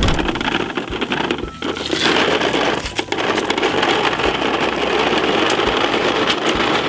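Plastic wheels of a Bruder toy recycling truck rolling over rough concrete as it is pushed along: a steady rough rolling noise with scattered clicks.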